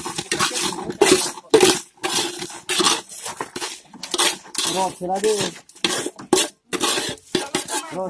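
Hand trowel scraping and knocking wet concrete out of a round metal mortar pan: repeated short metal-on-metal scrapes and clanks, mixed with the gritty slide of concrete.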